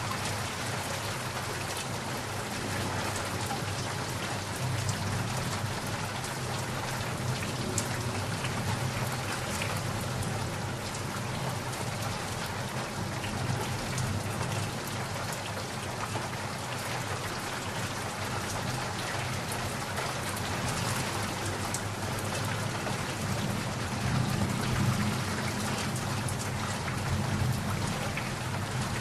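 Steady rain pattering on a surface, with a low thunder rumble beneath it that swells near the end.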